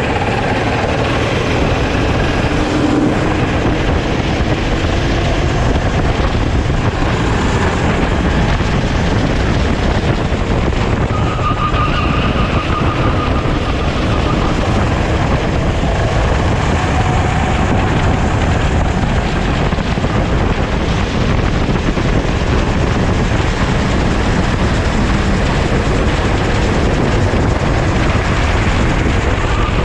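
Sodi racing kart at speed, its engine running hard under a dense rush of wind and road noise, with the engine note faintly shifting up and down in pitch.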